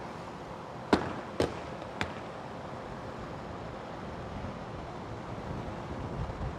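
Hard plastic Pelican case hitting the pavement after a drop from the top of a silo, then bouncing twice: a loud crack about a second in and two weaker knocks in the next second. A steady outdoor hum follows.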